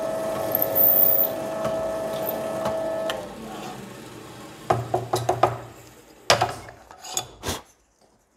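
Electric drill running steadily as it bores into plywood, the motor winding down about three seconds in. Then several knocks and clatters of the workpiece and tools being handled.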